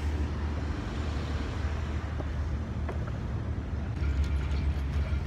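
Steady low outdoor rumble with a few faint clicks, growing a little louder about four seconds in.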